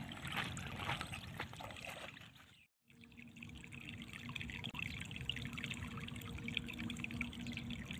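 Water trickling and splashing steadily, with a full break about three seconds in. After the break a faint steady hum runs underneath.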